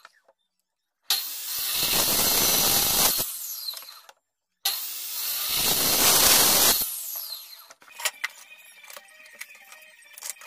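Metabo sliding mitre saw switched on twice, each time running up and cutting through a wooden board, then winding down with a falling whine after the trigger is released. Light clicks and tapping follow near the end.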